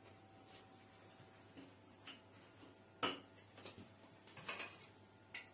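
Faint clinks and taps of a kitchen utensil against a plate and a glass dish, with a sharper clink about three seconds in, a quick few around four and a half seconds, and one more near the end.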